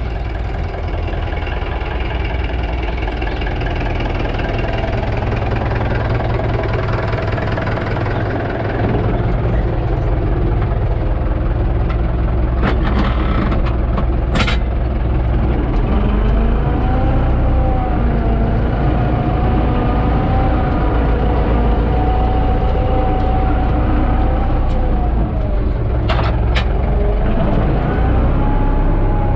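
UTB Universal 650 tractor's four-cylinder diesel engine running, heard from inside the cab. About nine seconds in it picks up and runs a little louder, and partway through a steady whine joins it; a few short sharp clicks come in the middle and again near the end.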